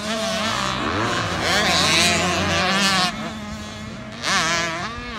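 Several dirt bike engines revving up and down through the gears at once, overlapping. The revs are loudest in the middle, and another bike revs up and back down near the end.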